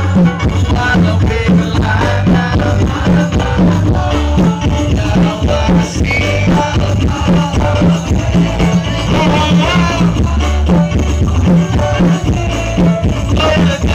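Live band music of a shalawat song, played loud through a PA sound system, with a steady beat and bass.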